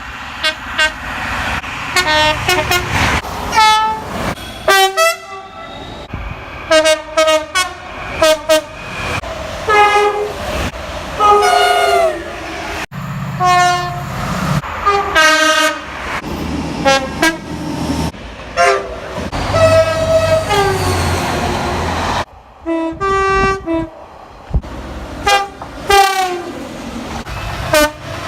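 British train horns sounded in rapid succession, with an abrupt cut between each clip. Most are short pitched blasts, several sliding or stepping down in pitch, with a few longer ones. A low rumble of the trains sits beneath some of them.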